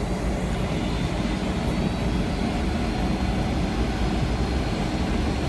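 Steady low rumble and hiss of a Boeing 747's jet engines, heard from inside the passenger cabin.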